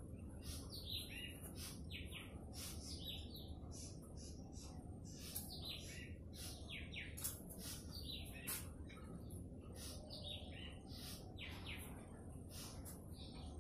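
Small birds chirping: a busy stream of short, high calls, several a second, over a faint low steady hum.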